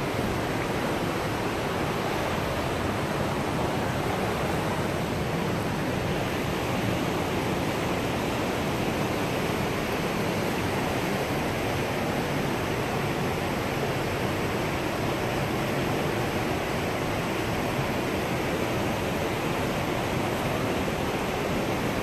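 River rapids rushing steadily over rocks, a constant even wash of white water.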